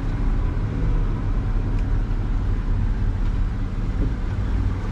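Twin outboard motors running steadily with a low, even rumble as the boat is powered up onto its trailer.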